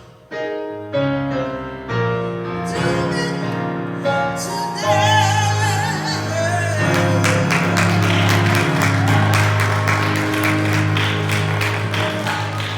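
Gospel music: a solo voice singing over keyboard and bass, with a steady percussion beat coming in about halfway through.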